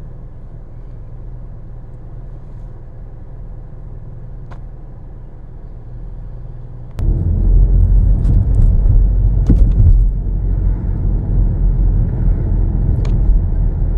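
A car idles with a low, steady rumble. About seven seconds in, the rumble jumps suddenly much louder as the car pulls away and drives on: engine and road noise heard from inside the car, with a few faint clicks.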